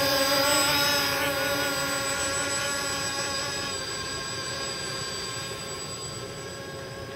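Foam-board tricopter's motors and propellers whining in flight, a buzzing tone whose pitch wavers slightly with throttle, growing steadily fainter as the craft flies away.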